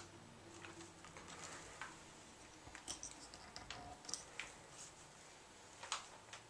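Faint, irregular clicks and taps of a flash and a plastic umbrella swivel bracket being handled and fitted together on a light stand.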